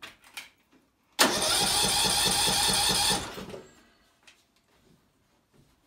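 A few light clicks, then the John Deere LA125 lawn tractor's electric starter cranks the engine for about two seconds with a rapid, even pulse. It winds down without the engine catching.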